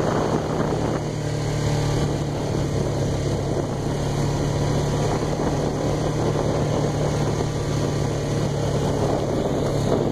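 ATV (quad bike) engine running steadily at riding speed, a constant low hum with road and tyre noise over it.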